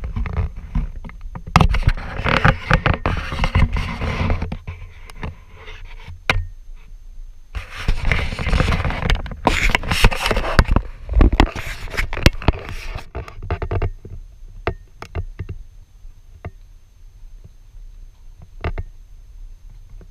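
Handling noise on a handheld camera's microphone while walking: bursts of scraping and rustling over a low rumble. It thins out to scattered clicks about two-thirds of the way in.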